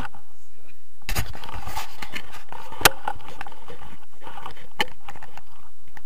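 Rustling and handling noise on a handheld action camera, with sharp clicks about three seconds in and again near the end.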